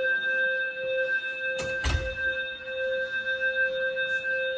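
Fire alarm voice-evacuation speaker sounding a steady alert tone between its "code red" announcements, one held note with a buzzy edge. Two sharp knocks, close together, come nearly two seconds in.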